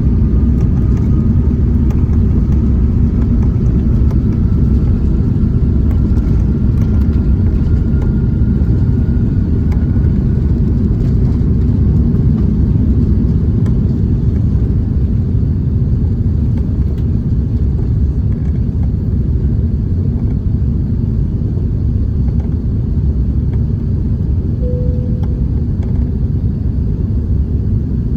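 Airbus A380's Rolls-Royce Trent 900 engines and airflow heard inside the cabin during takeoff: a loud, steady deep rumble. A faint whine rises slightly in pitch over the first ten seconds.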